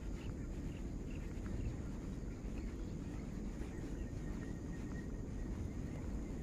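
Quiet outdoor ambience: a steady low rumble with a faint, thin high steady tone and a few faint chirps.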